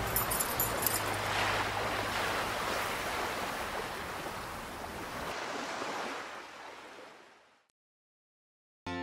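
A steady rushing noise, like surf, that fades out over the last few seconds into silence.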